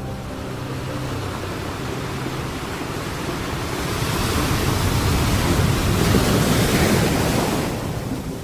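Sea surf on a beach: a steady wash of waves that swells about four seconds in as a wave breaks and rushes up, then eases off near the end.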